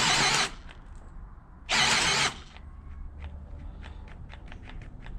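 Popoman 20 V brushless cordless drill driving a 1-inch self-feeding auger bit into wood: two short bursts of cutting, each cutting out after about half a second, then a run of light clicks. The drill quits because the 2.0 Ah battery is all but dead.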